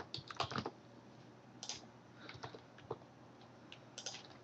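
Computer keyboard keys being typed: a quick run of keystrokes at the start, then single, irregular key taps.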